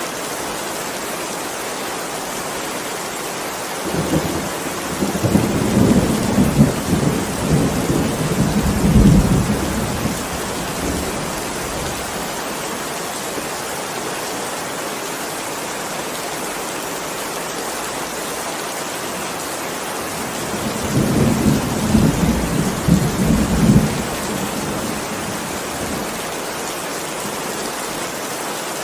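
Heavy rain falling steadily, with two low rolls of thunder: a long one starting about four seconds in and lasting some six seconds, and a shorter one about three quarters of the way through.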